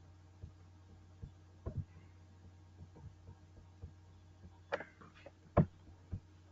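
Steady low hum with scattered soft thumps and clicks, one sharper knock a little past the middle.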